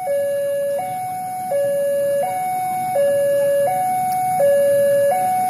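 Railway level-crossing warning alarm sounding: an electronic two-tone that alternates evenly between a higher and a lower tone, each held for about three-quarters of a second.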